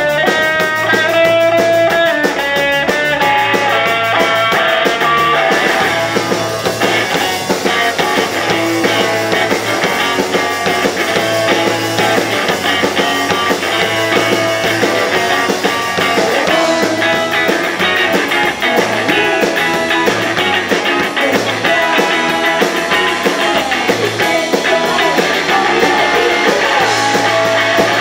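Garage rock band playing live: electric guitars over a drum kit, steady and loud throughout.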